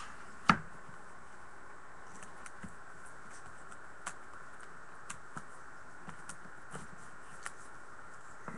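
Trading card box and packs being handled and opened: one sharp click about half a second in, then a few light, scattered taps over a steady background hiss.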